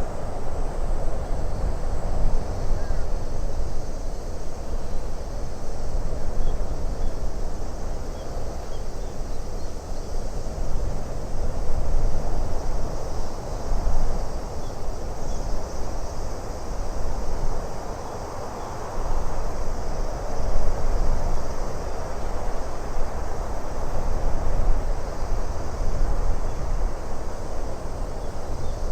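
Wind blowing steadily in gusts that swell and ease every few seconds, a deep rumble under a rushing hiss.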